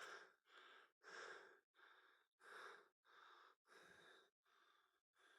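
A person breathing faintly and quickly close to the microphone, in and out about once every second and a half.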